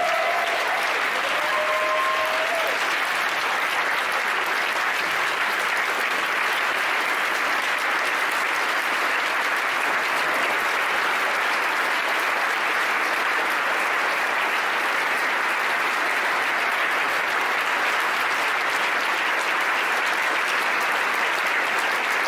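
A large audience applauding steadily, with a brief voice calling out in the first few seconds.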